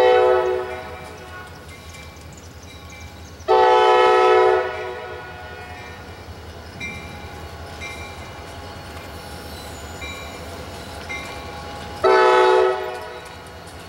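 Air horn of an EMD SD40M-2 diesel locomotive sounding three blasts of about a second each: one at the start, one about three and a half seconds in, and one near the end. The locomotive's low diesel rumble runs under them as it approaches.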